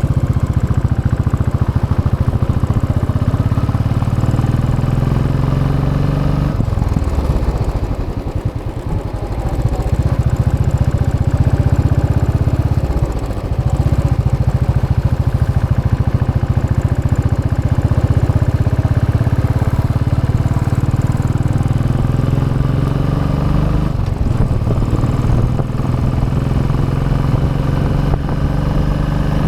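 Royal Enfield Classic 500 EFI's single-cylinder engine through its stock exhaust, pulling while riding: the pitch climbs for the first six seconds, drops as the throttle eases off, and after another short dip about thirteen seconds in it holds a steady cruise.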